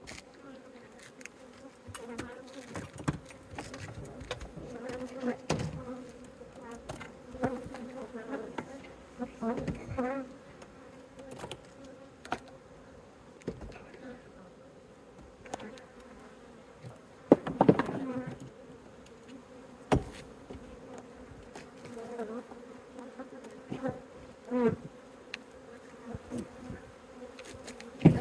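Swarm of honeybees buzzing around open hives, a steady hum, with scattered knocks and clicks from handling; the loudest cluster of knocks comes about two-thirds of the way through.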